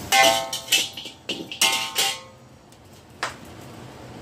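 Metal spatula knocking and scraping against a wok as goose feet are scooped out. The wok rings briefly after the louder strikes. There are three clusters of strikes in the first two seconds, the first the loudest, then one lighter click a little after three seconds.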